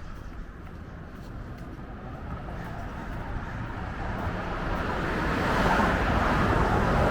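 A car driving by on the street, its tyre and engine noise growing steadily louder as it approaches in the second half.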